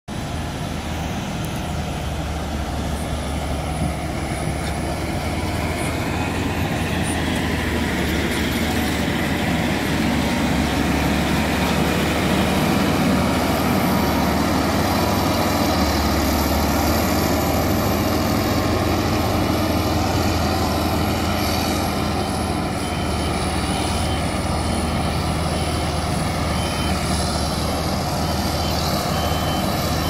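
Caterpillar motor grader's diesel engine running steadily under load while its blade spreads laterite fill. A repeating high beep joins near the end.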